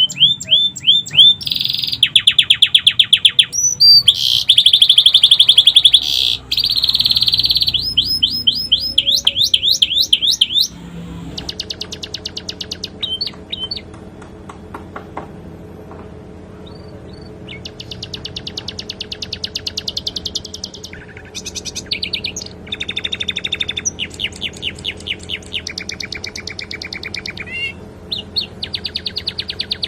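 Domestic canary singing a long run of rapid trills and fast repeated note series, its song filled with phrases copied from the sikatan londo. The first third is the loudest.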